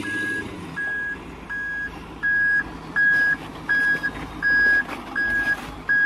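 Heavy-equipment reversing alarm beeping steadily, about four beeps every three seconds, getting louder about two seconds in, over the low running of a diesel engine.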